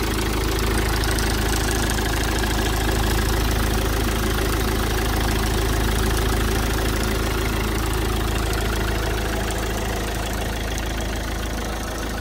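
A tipper truck's Iveco 2.3-litre 16-valve four-cylinder diesel engine idling steadily.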